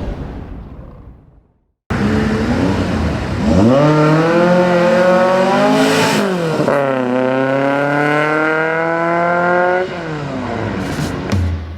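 Porsche 356 Speedster replica's engine accelerating hard: after a fading engine sound and a brief cut to silence, the note climbs through the revs, dips at a gear change about six seconds in, then climbs again and holds before the driver lifts off near the end.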